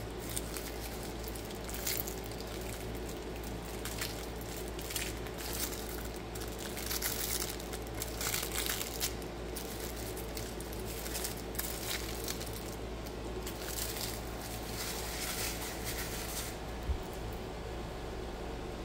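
Taped wrapping being peeled and crinkled off a small model crane part, in irregular rustles that stop near the end, followed by a single light click.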